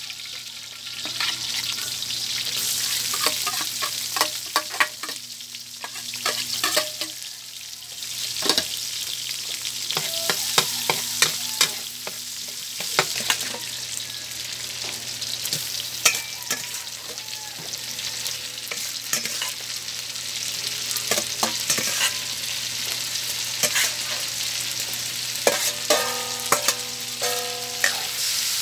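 Diced pork sizzling in a hot metal wok, stirred with a metal spatula that clicks and scrapes against the pan many times over the steady frying hiss.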